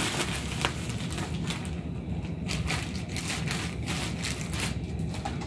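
Thin plastic bag crinkling and crackling irregularly as cotton balls are shaken out of it, over a steady low hum.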